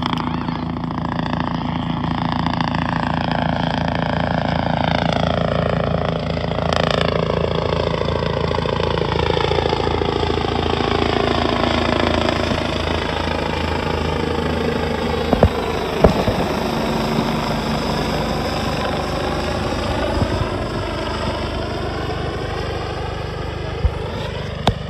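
Helicopter flying low overhead: its rotor chops steadily and its tone shifts slowly as it moves across the sky. A few sharp knocks come about two-thirds of the way through and again near the end.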